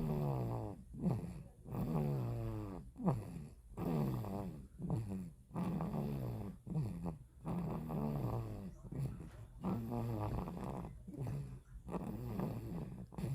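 Snoring: a pitched, whistling snore on each breath that slides down in pitch, repeating about once a second.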